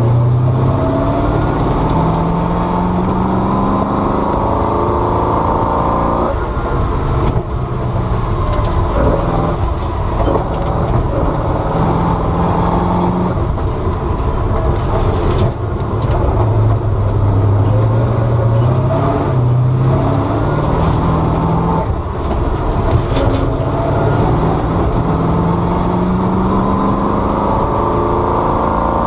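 The Bizzarrini 5300 Strada Competizione's naturally aspirated 5.3-litre Chevrolet V8 running loud under hard acceleration. Its revs climb and then fall back several times as it is taken through the gears.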